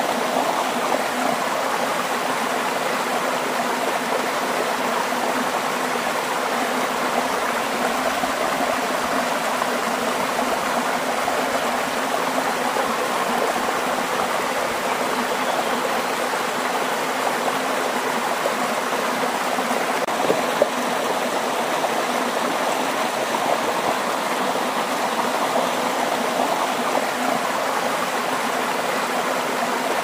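Flowing water rushing steadily, an even hiss and splash with no change in level.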